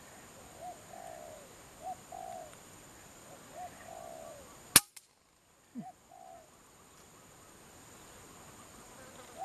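A dove or pigeon cooing over and over, each call a short rising note followed by a longer wavering one. About halfway through, a single sharp crack of an air-rifle shot, then the cooing comes once more.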